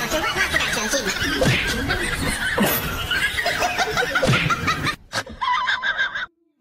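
People laughing hard, breaking off about five seconds in.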